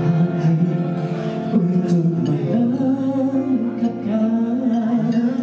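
Male singer singing a Malay pop song live into a handheld microphone over instrumental accompaniment, holding long, wavering notes from about halfway in.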